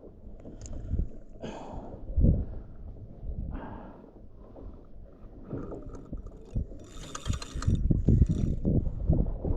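Low buffeting of wind and water on a kayak, with scattered short clattering and ratcheting sounds of gear being handled, loudest for about a second near the end.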